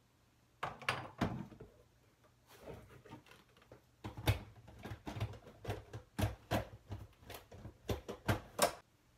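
Kitchen handling clatter: a plastic blender jar full of boiled tomatillos set down on its motor base on a countertop and handled, about a dozen separate knocks and clicks, some with a dull thud.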